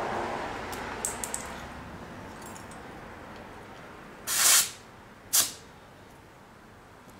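Two short hisses of air escaping from the rear tire's valve stem as a tire pressure gauge is pressed onto it, checking the pressure of a Honda Goldwing 1500 motorcycle tire. Before them, a few light clicks about a second in.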